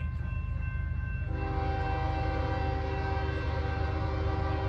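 Locomotive air horn on an approaching CSX freight train led by a GE ES44AC, sounding one long steady blast of several notes together that starts about a second in and lasts about three and a half seconds, over a steady low background rumble.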